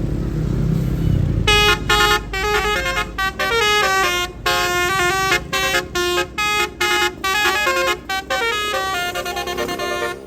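Tour bus's Basuri 'telolet' multi-tone horn playing a quick melody of short notes that jump in pitch, starting about a second and a half in. Before it, a low engine rumble is heard on its own.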